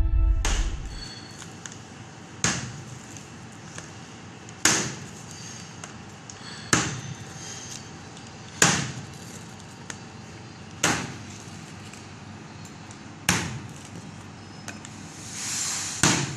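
Wheel pizza cutter slicing a pizza on a plate, with a sharp clack on each stroke about every two seconds, eight in all. A longer scraping swell comes just before the last clack.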